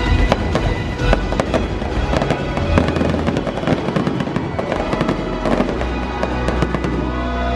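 Fireworks bursting and crackling in quick succession over the show's music soundtrack.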